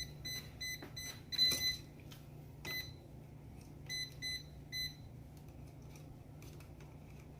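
Klein non-contact voltage tester beeping in short electronic chirps, about three a second, which signals that it is sensing voltage near the outlet. The beeping breaks off and resumes in short runs and stops about five seconds in. A sharp knock about a second and a half in is the loudest moment.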